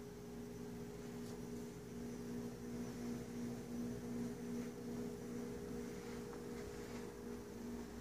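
Terrarium waterfall pump and fogging system running: a steady low electrical hum under a faint hiss of trickling water.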